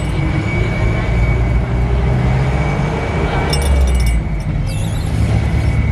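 Mitsubishi Canter 125 PS turbo-diesel bus engine running steadily under way, heard from the front seat, with a steady high-pitched whine above the engine noise and a short hiss about three and a half seconds in.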